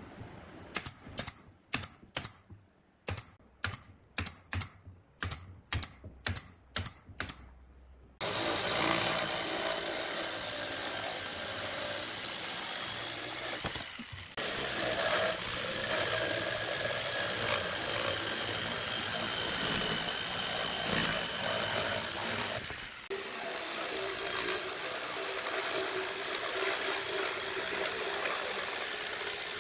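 A pneumatic nail gun fires over a dozen quick, sharp shots into pine. About eight seconds in, an electric jigsaw starts and runs steadily, cutting pine boards, with a brief break twice.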